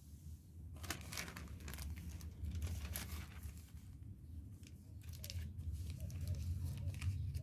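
Thin plastic drink-carrier bag crinkling and rustling in the hands as it is picked up and worked open, in irregular strokes starting about a second in. A steady low hum runs underneath.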